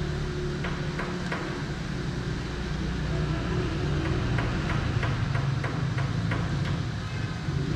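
Irregular light clicks and taps of hand tools and screws being handled, over a steady low hum.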